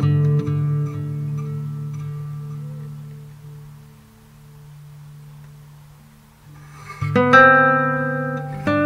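Background guitar music: plucked notes ring and die away to a quiet lull midway, then a new phrase of notes starts about seven seconds in.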